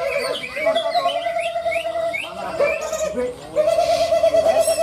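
Many caged green leafbirds (cucak ijo) singing at once in a songbird contest: a low warbling trill repeats in phrases of a second or two, overlaid by many short high chirps and slurred notes.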